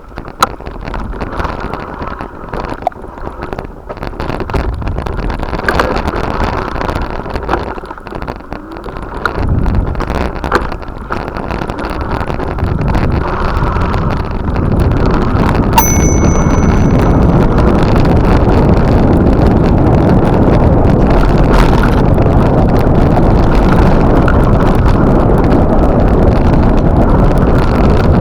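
Wind buffeting the microphone, building steadily louder over the first half and then holding as a constant loud rush. About sixteen seconds in, a small bell gives a single bright ding.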